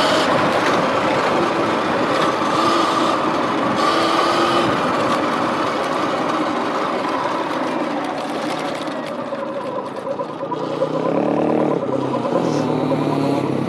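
Sur-Ron Light Bee X electric dirt bike under way on a dirt track: the electric motor's whine glides up and down in pitch as the speed changes, over a steady rush of tyre and riding noise. About eleven seconds in, a deeper note rising in pitch joins in.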